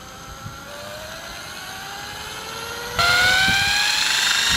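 Ryobi electric drill spinning up a heavy steel flywheel on a long shaft, its motor whine rising steadily in pitch as the wheel gains speed. It gets suddenly louder about three seconds in.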